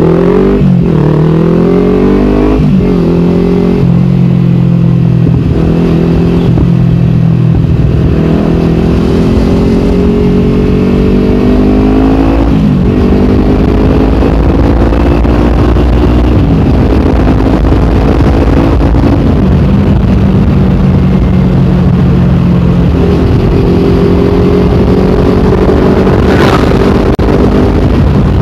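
Kawasaki Ninja 250 Fi parallel-twin engine through a KP16 aftermarket exhaust, pulling up through the gears. Its pitch climbs and drops at each quick upshift several times, then it settles into a steady cruise.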